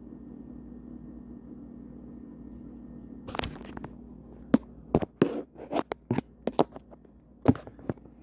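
Hard plastic parts of a phone-holder gadget being handled and fitted: about a dozen sharp clicks and knocks, starting about three seconds in after a stretch of low steady hum.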